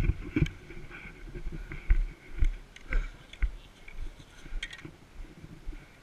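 Irregular low bumps and scattered sharp clicks of gear and a body-worn camera being jostled, the loudest click right at the start, over two faint steady high tones.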